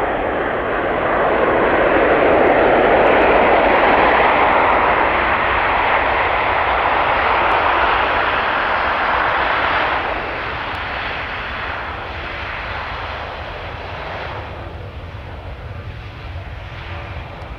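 Airbus A319's twin jet engines running at high power on the runway. It is a loud jet roar that swells over the first few seconds, drops sharply about ten seconds in, then slowly eases off.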